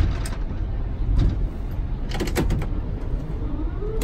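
Steady low rumble inside an Airbus A380 cockpit while taxiing, broken by a few sharp clicks, with a quick cluster of them about two seconds in, as switches on the overhead panel are flipped.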